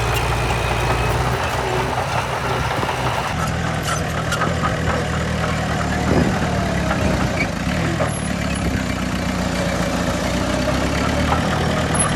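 Heavy diesel engine of an earthmoving machine running steadily at low revs, with a few faint knocks.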